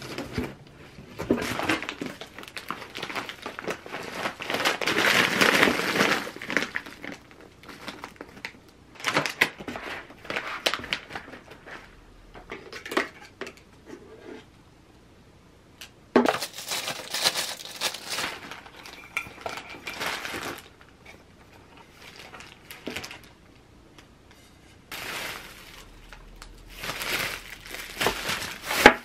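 Hands unpacking parcels: cardboard box flaps and plastic packaging rustling and crinkling in irregular bursts, with a few light clinks and knocks as a tableware set of bowl and fork is set on the table. Plastic grocery bags rustle near the end.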